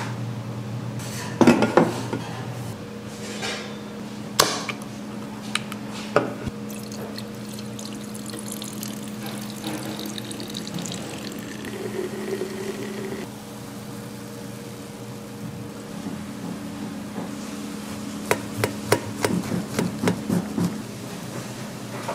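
Kitchen work sounds over a steady hum: a few sharp knocks in the first seconds and a quick run of clicks and taps near the end. A short noisy stretch stops abruptly about thirteen seconds in.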